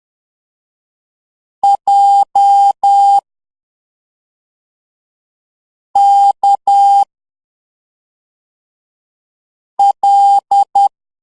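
Morse code beeps, a steady electronic tone keyed in dots and dashes: three letters about four seconds apart, J (dot-dash-dash-dash), K (dash-dot-dash) and L (dot-dash-dot-dot), sounding the alphabet in order.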